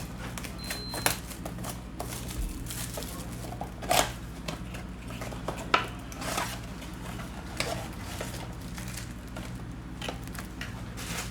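Trading card blaster box and packs being opened by hand: wrappers tearing and crinkling, with scattered rustles and sharp clicks, the sharpest about four and six seconds in. A low steady hum runs underneath.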